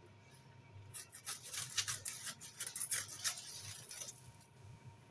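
Young date palm's stiff fronds rustling and scraping in a rapid crackly run as they are handled and worked on, starting about a second in and stopping shortly before the end.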